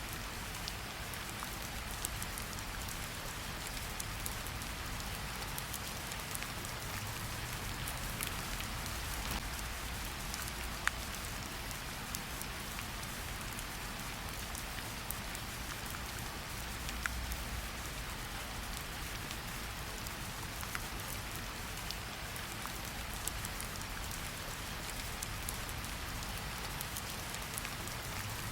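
Steady rain falling in a forest, an even hiss with scattered sharper drips and taps of individual drops.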